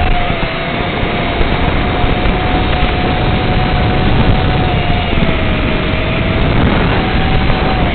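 FPV quadcopter in flight, heard through its onboard recording: a steady loud hiss with a thin motor whine that holds one pitch, dips slightly around five seconds in and comes back up near the end.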